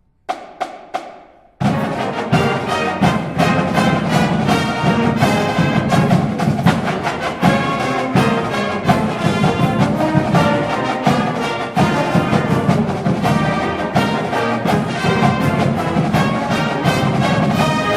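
Marching band playing: three sharp drum strikes, then the full brass section and drumline come in about a second and a half in and play on with a steady beat.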